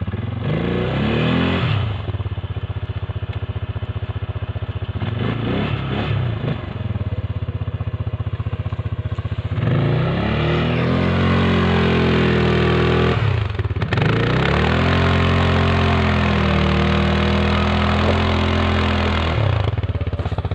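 CFMoto CForce 550 ATV's single-cylinder engine revving under load as the ATV pulls through deep snow up a slope. Two short bursts of revs come first, then the engine is held high for several seconds twice, with a brief dip between. The revs drop near the end.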